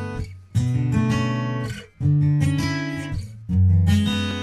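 Background music: acoustic guitar strumming chords, a new chord struck about every second and a half and left to ring out and fade.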